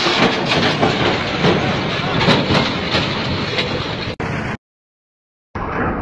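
Mini excavator's diesel engine running and its steel tracks clanking and grinding as it crawls over the edge of a tipping trailer deck. The sound cuts off abruptly for about a second near the end.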